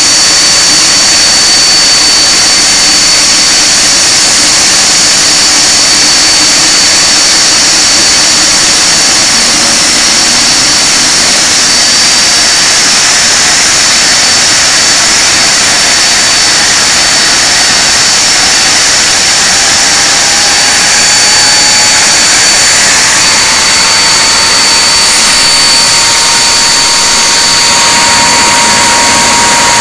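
Handley Page Victor K2's Rolls-Royce Conway jet engines running on a ground run, a loud steady jet noise with a high whine. About two-thirds of the way through, a lower tone slowly rises in pitch.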